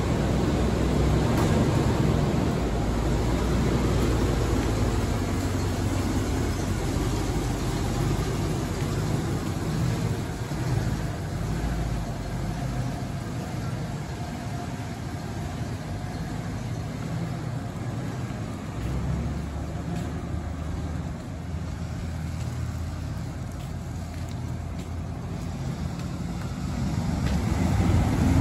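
1995 Ford F-250 pickup's engine running as the truck drives slowly, louder again near the end as it comes close.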